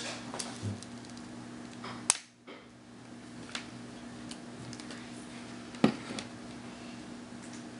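Sharp clicks and taps of wires and hand pliers being handled at a power supply's screw terminal block, the loudest about two seconds in and another near six seconds, over a steady low hum.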